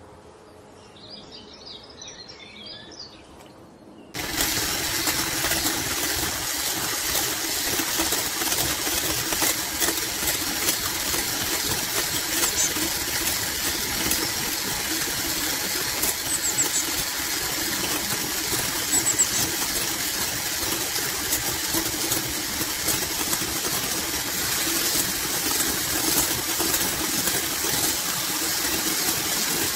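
Liquid cream trickling quietly into a glass bowl; about four seconds in, an electric hand mixer switches on and runs steadily, its beaters whipping the cream.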